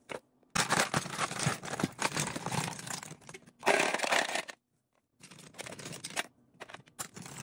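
Crinkling and rustling of plastic-wrapped beauty products being handled. In the second half, plastic lip gloss tubes clatter as a plastic scoop is pushed into a pile of them, giving scattered small clicks.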